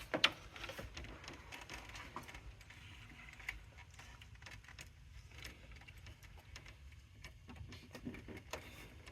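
Faint, scattered metallic clicks and clinks of small hardware, a castellated nut and washer, being handled and fitted onto the clutch cable linkage.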